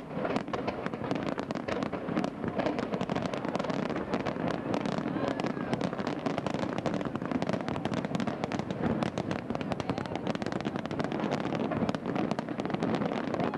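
Fireworks crackling: a dense, continuous run of small pops and bangs, many each second, over a steady low background noise.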